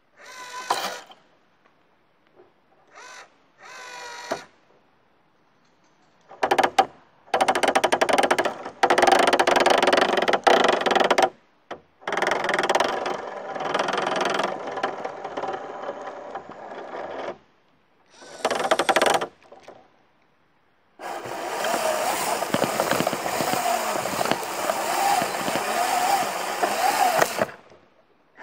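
Small electric motors and plastic gears of a Lego Technic remote-control off-road car running in stop-start stretches, with a whine that wavers in pitch and scraping noise mixed in. The longest run comes near the end.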